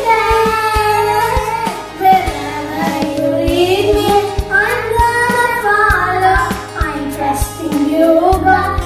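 Children singing an action song over a backing track with a steady beat.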